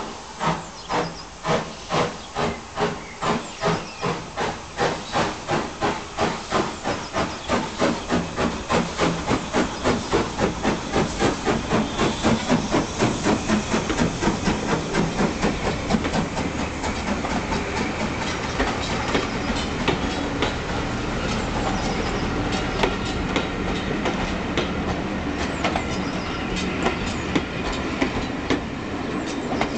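LMS Fowler 3F 'Jinty' 0-6-0 tank steam locomotive pulling away from a stand, its exhaust chuffing about twice a second at first and quickening steadily as it gathers speed and comes closer. About halfway through the chuffs give way to a steady rumble of the coaches rolling past, with wheels clicking over the rail joints.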